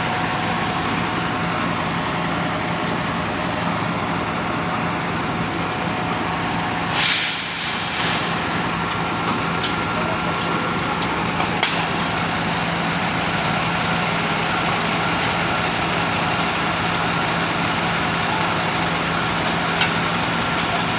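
Truck engine of a Schwing truck-mounted concrete pump running steadily, with one loud burst of air hiss about seven seconds in, lasting about a second, and a few light clicks after it.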